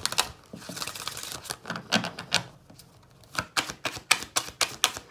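A deck of oracle cards being shuffled by hand: rapid runs of crisp card clicks in about three bursts with short pauses between.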